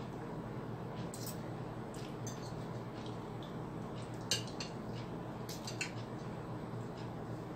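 Fork and spoon clinking against a plate while eating, a few sharp clinks, the loudest about four seconds in, over a steady low background hum.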